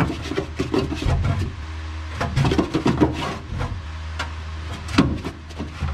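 Handling noise from hands working wiring in a car's sheet-metal trunk: scattered clicks, taps and rustles over a steady low hum.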